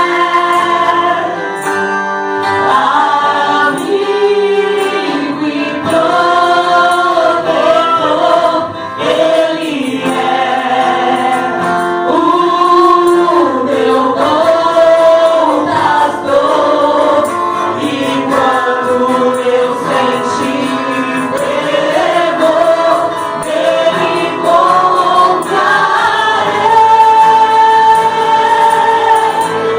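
Church worship choir singing a gospel song, the voices carrying a continuous melody with a long held note near the end.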